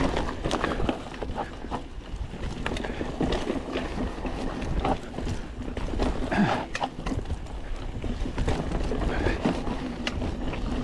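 Mountain bike riding fast down a dirt trail: tyres rumbling over the ground and the bike rattling and clacking over roots and bumps, with wind rushing on the microphone.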